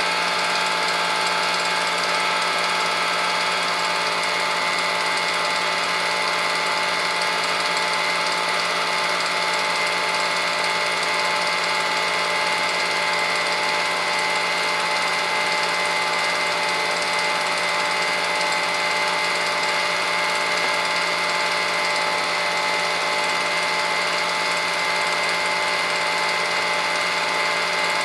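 Film projector running steadily: a mechanical whir with several steady tones.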